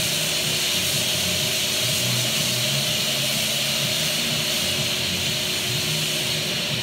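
Self-service car wash lance spraying active foam onto rubber floor mats: a loud, steady hiss of pressurised spray.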